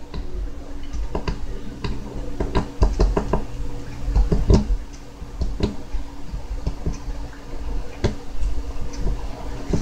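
Grafting knife cutting a slit into a short woody rootstock, with irregular sharp clicks and knocks as the blade works into the wood and the stick is pressed on the table. A low steady hum runs underneath.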